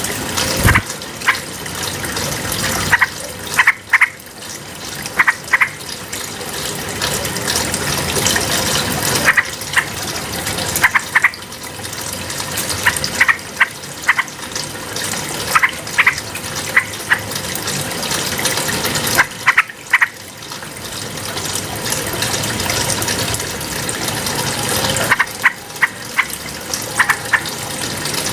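Yellow-vented bulbul (trucukan) calling in short, bright chirping notes at irregular intervals over a steady rush of running water.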